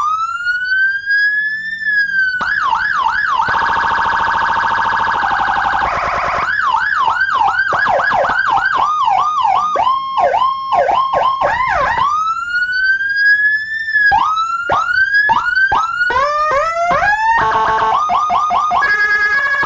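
Aftermarket 200-watt police-escort siren with a Whelen HHS 24-tone IC kit, stepping through its tones. It opens with a slow rising wail, then moves through fast yelps, a steady buzzing horn tone, another wail, quick upward chirps and a two-tone hi-lo near the end.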